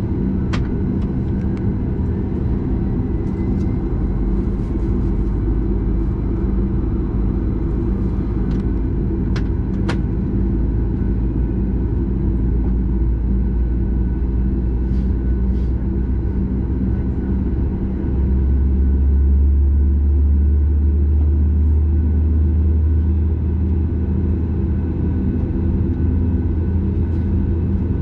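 Cabin noise of a Boeing 737 MAX 8 on the ground beside its CFM LEAP-1B engine: a steady low engine rumble with a hum, growing deeper and louder about 18 seconds in. Two sharp clicks come in the first ten seconds.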